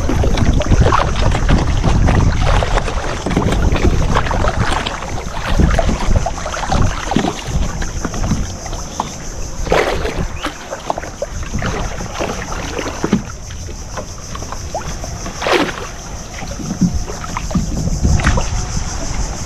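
Small fibreglass fishing boat under way on open water, its engine and the water noise mixed with heavy wind buffeting the microphone. Two brief sharper noises stand out, about ten and fifteen seconds in.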